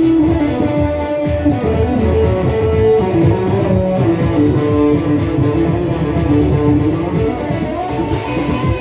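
A band playing at rehearsal: electric guitar holding and changing notes over bass, with a steady beat of about three strokes a second.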